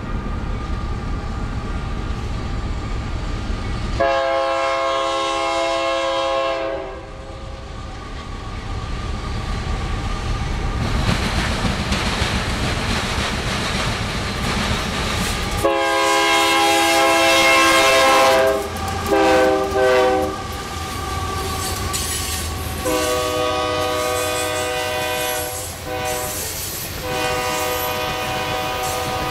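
Union Pacific GE AC4400CW locomotives on a coal train sound their multi-note air horn in a series of blasts: one long blast about four seconds in, then from about sixteen seconds a long one, a short one and two more long ones. Under the horn the train's rumble grows as it nears, and the coal hoppers roll past with wheel clatter.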